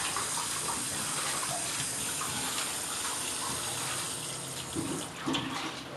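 Kitchen tap running in a steady stream into a stainless steel sink, splashing over a child's hands as he washes them. About five seconds in the flow eases off, and a few short pitched sounds come in near the end.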